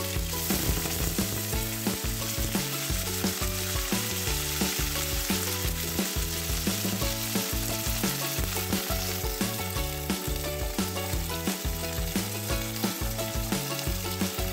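Cauliflower florets and carrot pieces frying in hot mustard oil in an aluminium kadai: a steady sizzle as the vegetables are lightly fried.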